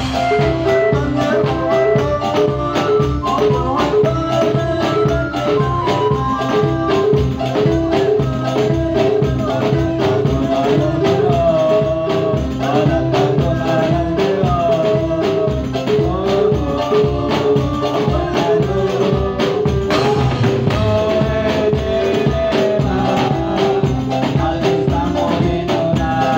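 Live Badui dance music: jingling tambourine-like percussion and drums keeping a steady, driving beat under a stepping melody line, with some singing.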